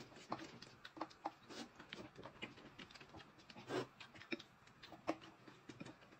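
Faint eating sounds: chewing and crunching of dry oat cereal and slurping and chewing of noodles, as many small irregular clicks with a couple of louder slurps.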